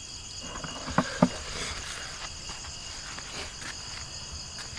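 Steady chorus of night crickets, a continuous high shrill trill, with two sharp knocks a quarter second apart about a second in.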